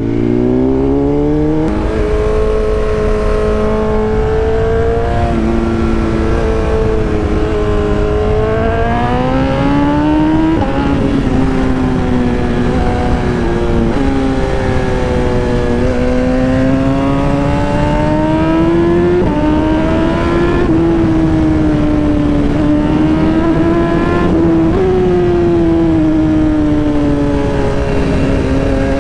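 BMW S1000RR's inline-four engine under way, its pitch rising and falling with the throttle and dropping sharply a few times at gear changes, over steady wind rush.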